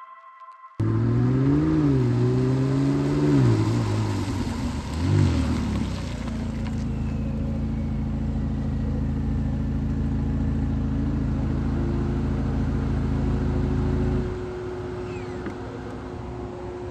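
A car engine revving up and down a few times, with a short blip about five seconds in. It then holds steady revs and drops to a quieter, lower running level about fourteen seconds in.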